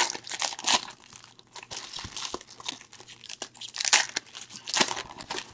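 Plastic wrapper of a trading card pack crinkling and crackling in irregular bursts as hands tear it open, loudest at the start and about four seconds in.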